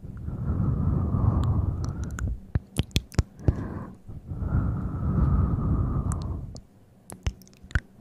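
Close-miked ASMR hand sounds: two long rubbing swishes of a hand over the microphone, each a couple of seconds long, with a run of sharp taps and clicks after each.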